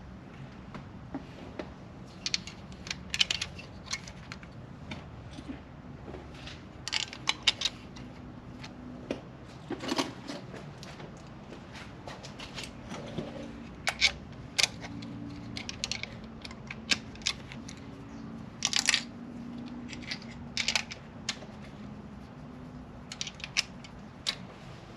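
Light metallic clicks and clinks of metal parts and hand tools being handled on an open Honda H22 cylinder head, coming in scattered groups every second or two.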